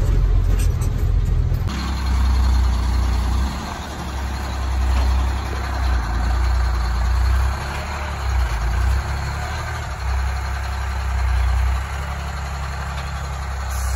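Heavy truck's diesel engine running with a deep rumble that rises and falls.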